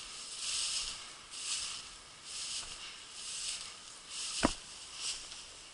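Grasshoppers or crickets chirping in tall grass: raspy, hissy bursts about once a second. A single sharp knock about four and a half seconds in.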